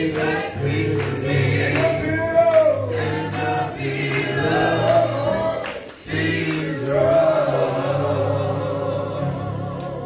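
Gospel choir singing with instrumental accompaniment and a beat, with a brief break about six seconds in.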